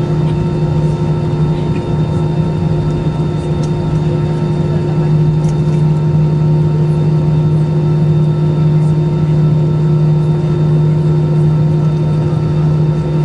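Cabin noise inside an Airbus A320-214 taxiing, its CFM56-5B turbofan engines at idle: a steady low drone and hum over a constant rush of air.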